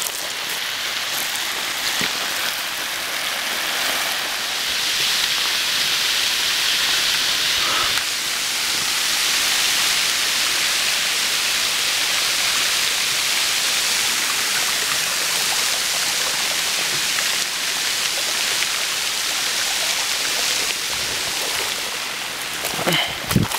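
Flash-flood water rushing over gravel in a desert wadi: a steady, even hiss of flowing water, with a few brief knocks near the end.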